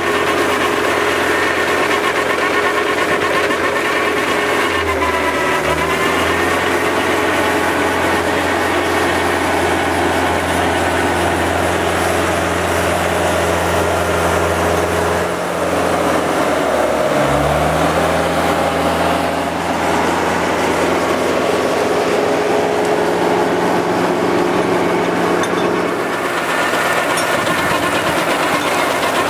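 Tractor engine and a Valentini Skorpion mulcher's rotor running steadily while shredding brush and tall grass. The running pitch sags briefly twice, about six and about seventeen seconds in, and recovers each time.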